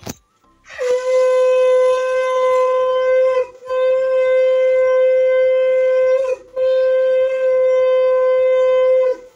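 Conch shell (shankha) blown in three long, steady blasts, each about three seconds long and each dropping in pitch as it ends: the customary three conch blasts of a Hindu puja.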